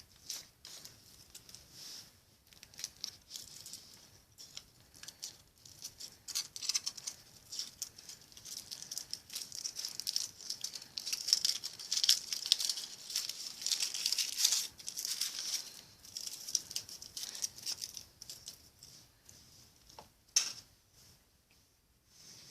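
Thin foil wrapper of a Kinder Surprise chocolate egg crinkling and tearing as it is peeled off by hand, an irregular stream of crackles that grows busier in the middle, with one sharper crackle near the end.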